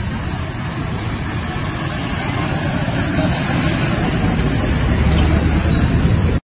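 Wind buffeting the microphone: a steady low rumble with hiss, a little louder about five seconds in.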